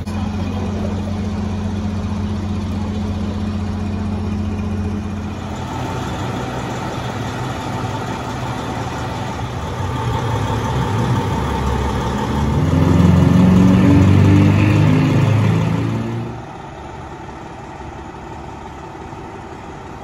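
Fire engine's diesel engine idling steadily, then revving as the truck pulls away, its pitch climbing in steps as it gets louder; the sound drops off sharply near the end, leaving a quieter steady hum.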